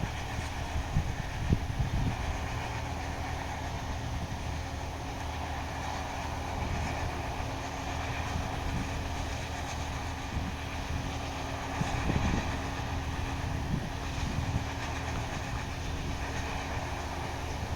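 Combine harvester running steadily, a constant low mechanical hum with a steady drone, with a few brief low rumbles.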